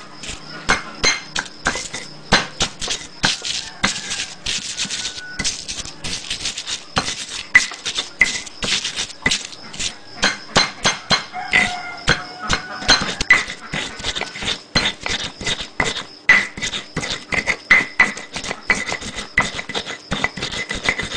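Stone pestle pounding shallots, garlic, red chillies and salt in a stone mortar (ulekan and cobek): repeated sharp stone-on-stone knocks, about two to three a second and unevenly spaced, as the spice paste for nasi goreng is ground.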